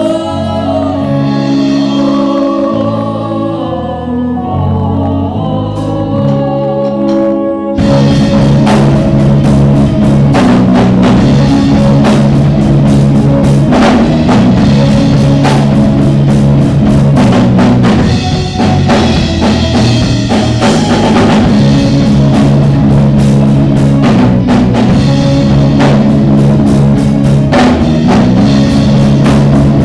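Live rock band: a soft passage of singing over sustained keyboard chords, then about eight seconds in the full band comes in loud with drum kit, electric guitars and bass.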